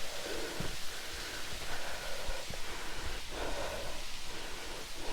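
A hiker breathing heavily while climbing a steep slope, a hard breath every second or so, over a steady rushing hiss.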